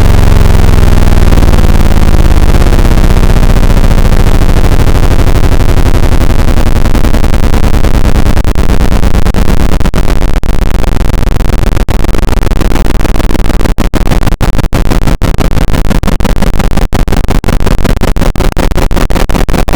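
Extremely loud, bass-boosted and heavily distorted sound effect: a dense clipped roar with rapid stuttering pulses, broken by brief dropouts over its second half.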